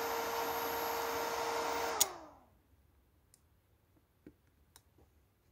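Welding inverter's cooling fan running with a steady whir and hiss; about two seconds in a sharp click cuts the power and the fan winds down, its pitch falling, followed by a few faint small clicks.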